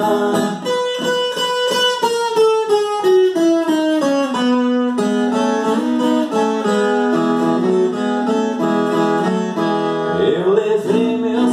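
Viola caipira, the Brazilian ten-string folk guitar, played fingerstyle in an instrumental passage: a run of plucked notes that descends over the first few seconds, then quicker repeated notes.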